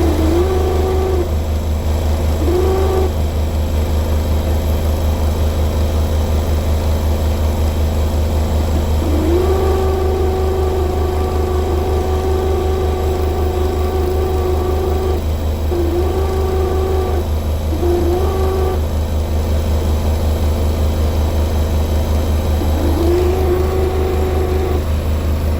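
Beko washing machine pump running with a loud, steady buzzing hum. A pitched whine comes and goes over it several times, sliding up as it starts and lasting from half a second to about six seconds; this is the strange noise that marks the pump as faulty. The hum stops near the end.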